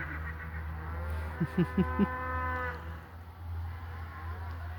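Cattle mooing during a cattle drive: one long moo through the first half, with a few short knocks about a second and a half in and a low steady hum underneath.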